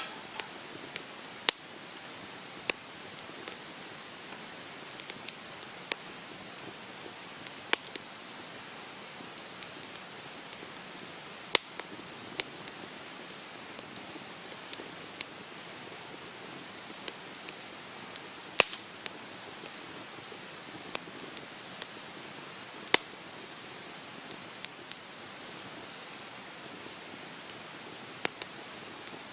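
Wood campfire crackling: irregular sharp pops and snaps, a few much louder than the rest, over a steady soft hiss.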